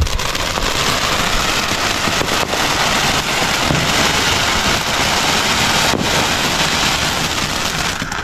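Ground fountain firework spraying sparks with a loud, steady hiss and scattered crackles, cutting out near the end as it burns out.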